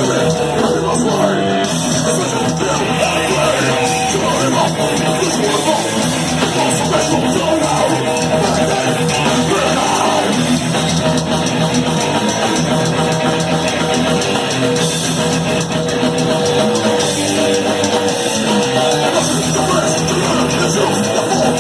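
Speed/thrash metal band playing live: distorted electric guitars, bass and drums at a steady, loud level with no breaks.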